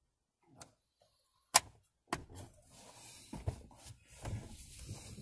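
Handling noise in a car's cabin: a sharp click about one and a half seconds in and another half a second later, then continuous rustling with soft knocks as the newly fitted steering wheel is handled and the driver shifts in his seat.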